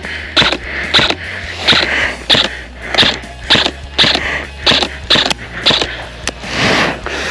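Footsteps walking at a steady pace, a little under two steps a second. They give way to a longer rustling sound near the end.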